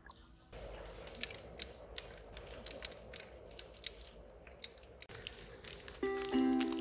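Wood fire crackling, with many sharp pops over a steady hiss. Background music with ukulele comes in near the end.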